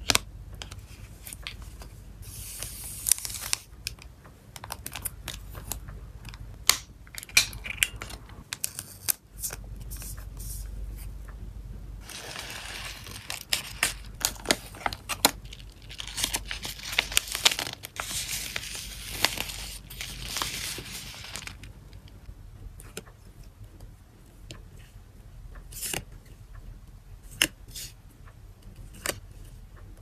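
Photocards being handled in plastic sleeves and paper wrapping: crinkling and rustling of plastic film and paper, with many sharp clicks and taps. The rustling comes in a short burst early on and a longer stretch in the middle.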